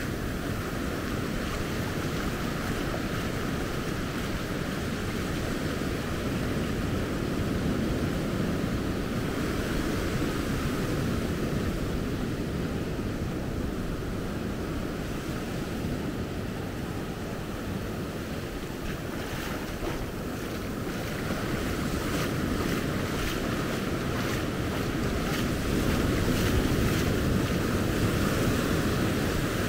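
Ocean surf breaking and washing up a sandy shore, swelling and easing, with wind buffeting the microphone.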